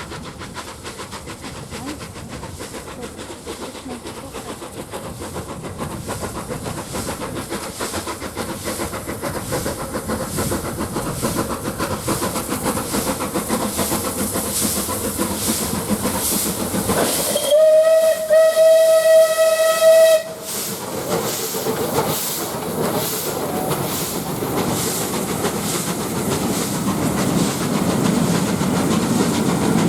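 Rebuilt Southern Railway Merchant Navy class steam locomotive 35018 British India Line approaching with a steady chuffing exhaust that grows louder, then sounding one long steady-pitched whistle for about three seconds past the halfway mark, before the train's noise swells as it draws level.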